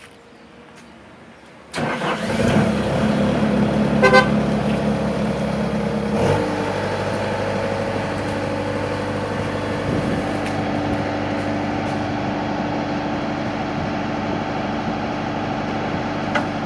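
Bobcat S220 skid steer's 75-horsepower Kubota diesel engine starting up about two seconds in and running. A short beep sounds a couple of seconds after it catches, and the engine note changes about six seconds in before settling into a steady run.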